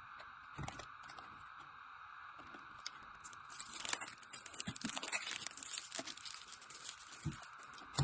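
Packaging being handled: crinkling and tearing of plastic wrap, quiet at first and then a dense crackly rustle from a few seconds in. A few soft thumps near the end.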